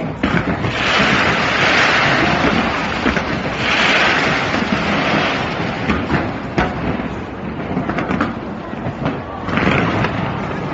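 Fireworks going off in quick succession: sharp bangs and crackling over a constant noise, with long stretches of hissing about a second in, about four seconds in, and again shortly before the end.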